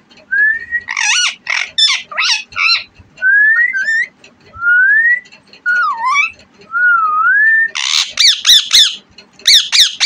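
Indian ringneck parakeet calling: short whistles that rise, fall or waver, broken by bursts of harsh chatter. A quick run of loud, harsh squawks comes near the end.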